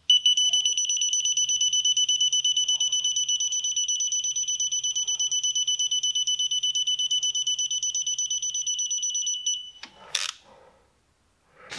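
Digital torque wrench beeping in a fast, steady pulse of one high tone for nearly ten seconds as it is pulled on a brake caliper bolt, signalling that its 27 newton meter setting is being approached while the bolt still turns. The beeping cuts off, followed by a brief click.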